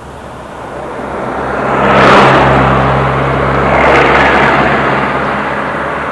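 A heavy vehicle drives past close by, its engine hum and road noise swelling to a peak about two seconds in, rising again near four seconds, then fading.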